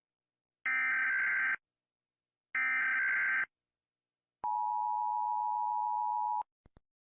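Emergency Alert System alarm: two bursts of digital data tones, about a second each, as in a SAME header, then a steady single attention tone of about two seconds, followed by two faint clicks near the end.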